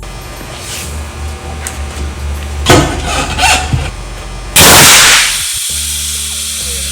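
Tire bead seater tank discharging, with a couple of sharp cracks and then a sudden loud blast of compressed air about halfway through that cuts in at full strength and tails off over about half a second.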